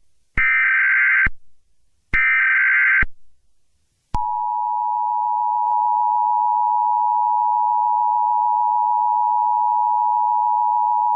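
Emergency Alert System tones: the last two of the three SAME header data bursts, short harsh digital screeches about a second apart, then about four seconds in the steady two-tone EAS attention signal starts and holds.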